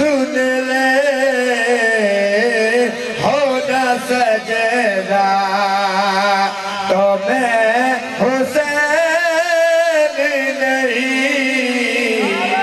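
A man singing long, drawn-out lines whose pitch wavers and glides: a zakir's sung devotional recitation at a Shia majlis.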